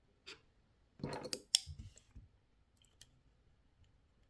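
Small sharp clicks and a brief rattle of hard parts being handled while an airsoft pistol is put back together. A cluster of clicks comes about a second in, with single clicks before and after.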